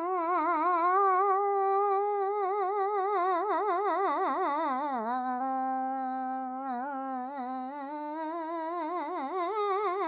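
A woman humming a long wordless tune with a wide, wobbly vibrato. The pitch sinks lower about halfway through, holds there, then climbs back near the end. It is a mock 'cat song'.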